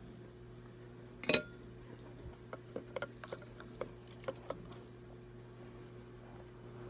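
Small clinks and clicks of guitar wiring parts and tools being handled: one sharp clink about a second in, then a scatter of lighter clicks, over a steady low hum.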